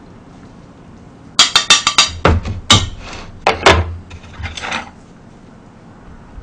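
A quick run of sharp clicks from metal kitchen tongs, then several louder knocks and clacks as the tongs and a plastic bowl hit a pot and the table.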